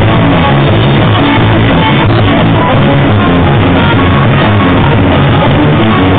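Rock band playing live: electric guitars and a drum kit, loud and continuous, in a muffled, low-quality recording with the high end cut off.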